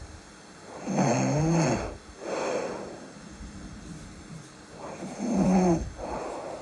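A sleeping person snoring: two snores about four seconds apart, each a loud, pitched, wavering rattle followed by a softer breath.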